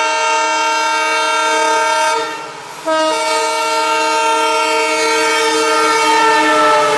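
Indian Railways locomotive horn sounding two long steady blasts as the train approaches: the first breaks off about two seconds in, and the second starts under a second later and is held on.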